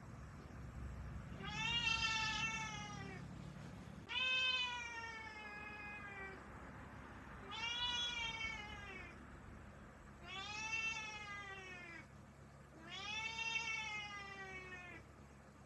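Domestic cat meowing: five long, drawn-out meows about three seconds apart, each rising and then falling in pitch.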